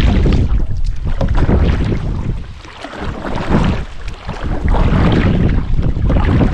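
Wind rumbling on the microphone out on a canoe, with the paddle dipping and splashing in the water. The wind noise eases briefly about halfway through.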